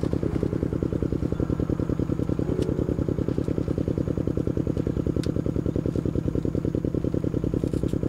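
A small engine running steadily with a fast, even putter, and a few faint clicks over it.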